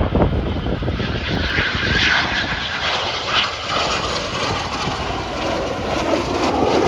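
A display aircraft's engines running as it flies overhead: a steady, loud rush of engine noise that swells brighter about two seconds in.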